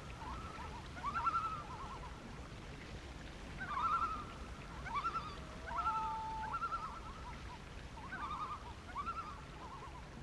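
Common loon calling: repeated bursts of quick wavering notes every second or two, with one short held note about six seconds in, over a low steady background hiss.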